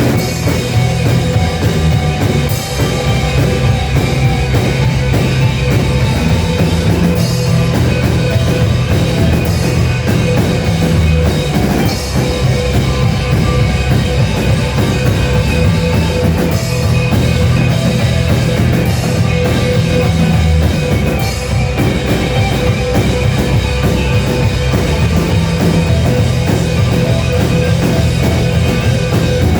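Loud rock music with a drum kit, played continuously by a band.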